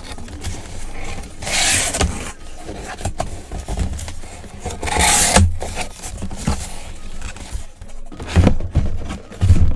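Cardboard shipping box being opened by hand: flaps scraping and rubbing, and plastic-cased mini helmets shifting inside, in several scraping bursts.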